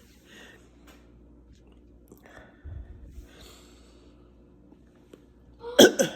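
A congested person breathing and sniffing faintly over hot menthol steam, with a soft low bump about halfway through, then one sudden, loud burst of breath from the throat and nose near the end.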